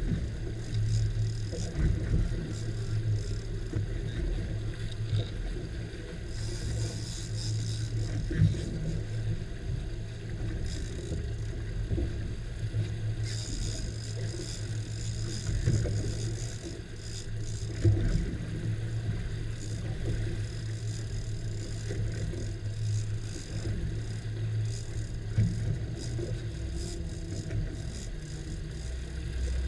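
Twin Suzuki 200 outboard motors idling in a steady low hum, with wind and water noise over it and a few sharp knocks on the boat.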